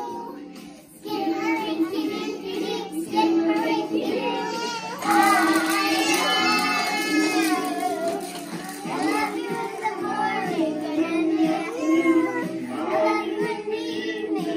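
A small group of young children singing a song together, with a short break in the singing just under a second in.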